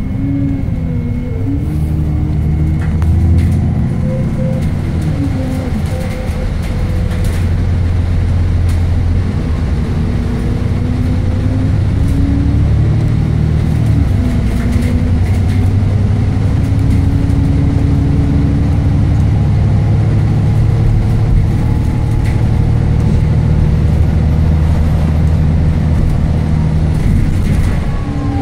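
Alexander Dennis Enviro400 (E40D) double-decker bus's diesel engine pulling under load, heard from inside the lower deck. Its pitch rises and drops with gear changes in the first few seconds, then it runs on in a steady drone.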